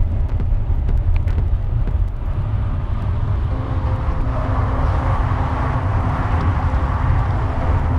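Wind rumbling on the microphone of a camera riding along on a bicycle, with road noise; from about halfway a steady hum and a rushing sound build up over it.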